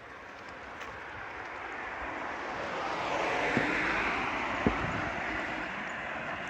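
A passing vehicle: its noise swells to a peak about four seconds in, then fades. Two sharp knocks come near the peak.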